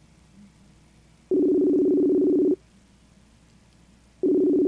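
Ringback tone of an outgoing mobile phone call: a steady two-note buzz lasting about a second and a quarter, heard about a second in and again near the end, with the line ringing unanswered.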